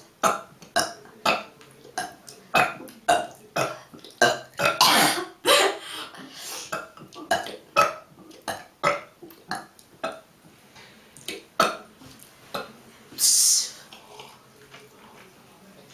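A girl burping over and over in a rapid string of short burps, about two a second, with a longer burp about five seconds in; the burps come more sparsely in the last few seconds.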